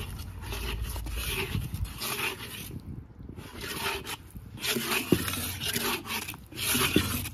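A spatula scrapes against a kadhai, stirring a thick mix of roasted gram flour (besan) and sugar syrup in uneven strokes.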